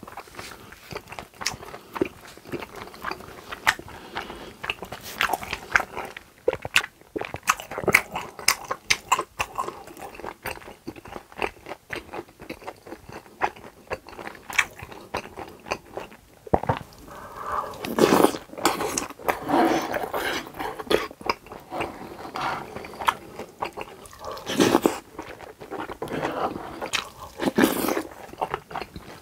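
Close-miked chewing of pork intestines (gopchang) in a spicy sauce: many quick, wet mouth clicks and smacks, with a few louder stretches of mouth noise about midway and again near the end.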